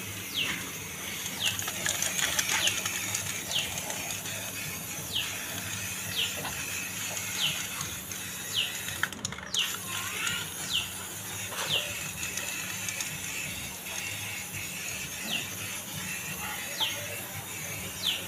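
Aerosol spray paint can hissing as black paint is sprayed onto a motorcycle engine. Short high falling chirps repeat about once a second throughout.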